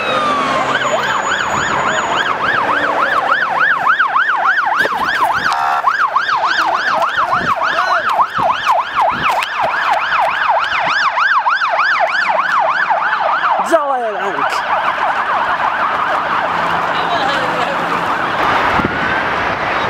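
Electronic emergency-vehicle siren that switches from a slow wail into a fast yelp, sweeping up and down about three to four times a second. About fourteen seconds in it cuts off with a falling glide, leaving a steady rushing noise.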